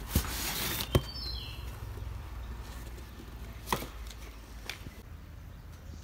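Handling noise from a boxed plastic pond filter and its cardboard and bubble-wrap packaging: rustling in the first second, then a few sharp knocks, two close together near the start and one more about halfway through.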